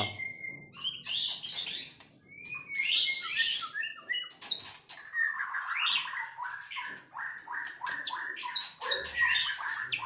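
White-rumped shama (murai batu) singing a varied song of whistles and harsh chattering notes; from about halfway it goes into a fast run of repeated notes, about three a second.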